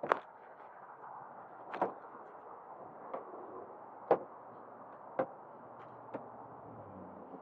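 Sharp knocks and clicks, about six roughly a second apart, as the plastic and metal parts of a Magellan portable outdoor kitchen case are handled and fitted together, over a steady background hiss.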